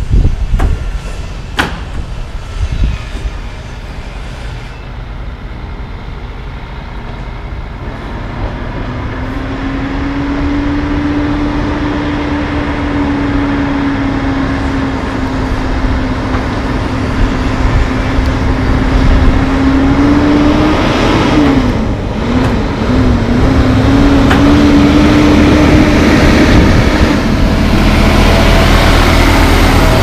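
Diesel engine of a concrete mixer truck approaching, growing steadily louder as it nears, with its engine note dipping and wavering briefly about two-thirds of the way through. A few sharp knocks sound near the start.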